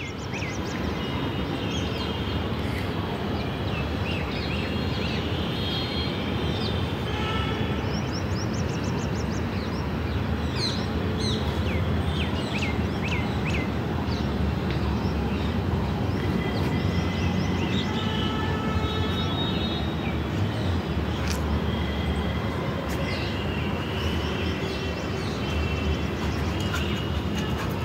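Birds chirping and whistling over a steady low background rumble. The chirps come as quick short notes clustered a third of the way in, with held whistled notes near the start and near the end.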